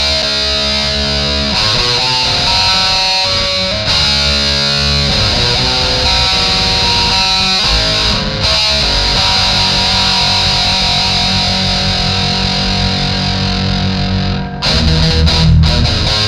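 Distorted electric guitar playing sustained chords and riffs. About fourteen seconds in it breaks briefly and comes back slightly louder, heavier in the low end.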